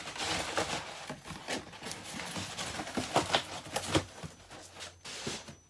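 Cardboard delivery boxes and packaging being handled: irregular rustling and scraping, with a few sharp knocks about three and four seconds in.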